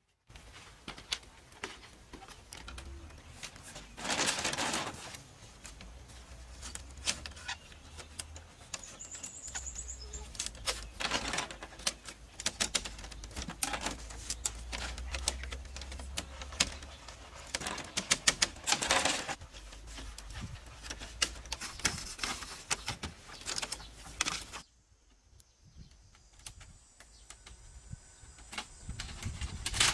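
Thin split-bamboo strips clicking and rattling against a bamboo frame as they are woven in by hand, with a few louder bursts of rattling; quieter after a drop about 25 seconds in.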